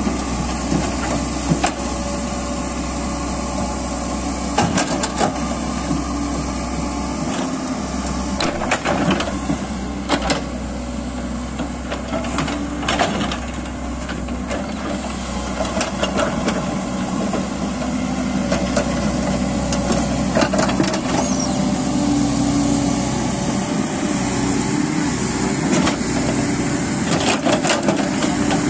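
Komatsu crawler excavator's diesel engine running steadily under working load as the bucket digs and moves soil, with scattered knocks and scrapes from the bucket and earth.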